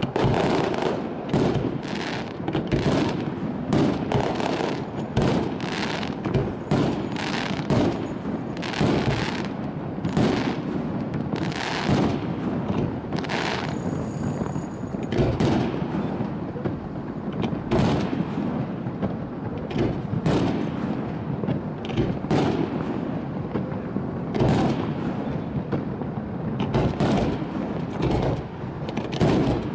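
Aerial fireworks display: a dense, unbroken run of shell bursts and launches, often two or more sharp bangs a second over a continuous rumble of crackle and echo.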